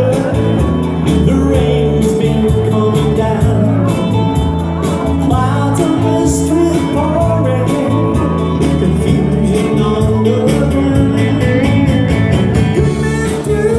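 Live rock band playing a dance number on electric guitars, bass guitar and drums, with a steady beat.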